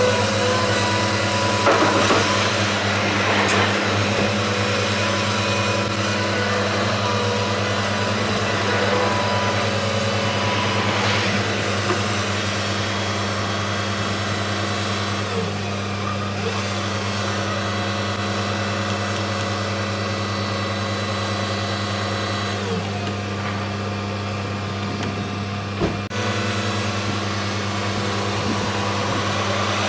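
Caterpillar tracked hydraulic excavator working, its diesel engine running steadily with a wavering higher whine over the first few seconds. A single short knock comes near the end.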